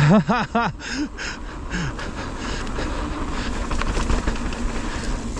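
Mountain bike riding on a dirt trail: a steady rush of tyre and wind noise with scattered rattling clicks. Near the start there are three quick short yelps, and a couple of fainter ones follow.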